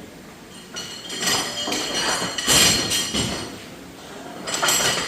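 Irregular clatter and knocking of metal parts, several separate bursts a second or two apart.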